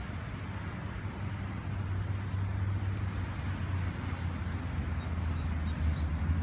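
Steady outdoor rumble and hiss, the low rumble growing stronger and a little louder partway through.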